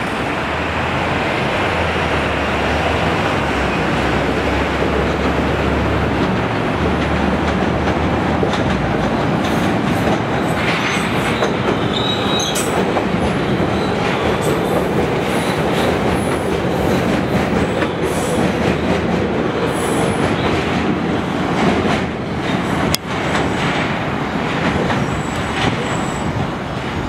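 CRRC 7000-series rapid-transit cars running along elevated track: a steady, loud rail rumble with wheel clatter and a few brief high-pitched wheel squeals. About 23 seconds in, the sound cuts abruptly to a second 7000-series train at a station platform.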